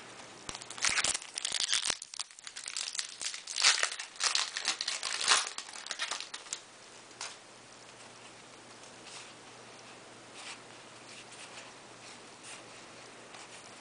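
Foil Yu-Gi-Oh! booster pack wrapper crinkling and tearing open in quick bursts for about six seconds, then much quieter with a few faint clicks.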